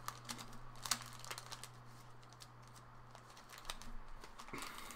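Trading cards being handled on a table: scattered light clicks and taps, then a short rustle near the end.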